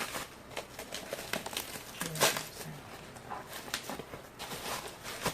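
Packaging being pulled open by hand: rustling and crinkling with scattered clicks, and one louder crackle about two seconds in.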